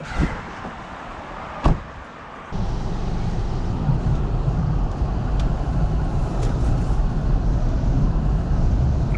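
Two sharp knocks inside a car, then, about two and a half seconds in, the car's heater blower comes on abruptly with a steady loud rush of air and rumble.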